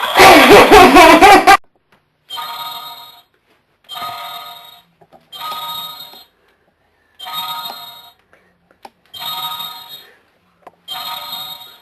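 Toy sound-effect wand playing an electronic ringing tone six times, evenly spaced at just under two seconds apart, like a phone ringtone. It starts with a loud wavering pitched sound lasting about a second and a half.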